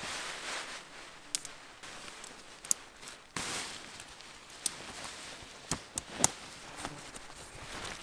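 A fabric tent fly rustling as it is lifted and pulled over the poles, with a series of sharp clicks and taps from the poles and fastenings, the loudest about six seconds in.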